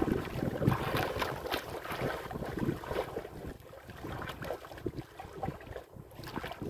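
Wind buffeting the microphone over a choppy sea, with waves splashing against the hull of a small outrigger boat in uneven gusts.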